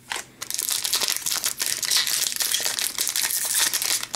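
Crinkling of a 2014-15 Upper Deck Series 1 hockey card pack wrapper as it is handled, a dense, continuous crackle starting just after the beginning.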